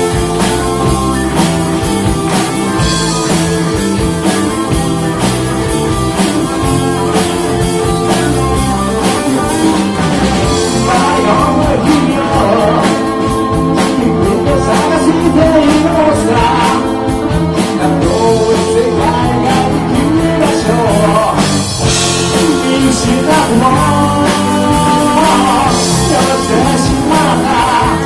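Live rock band playing amplified electric guitars, bass and drum kit, with a lead vocal that comes in about ten seconds in.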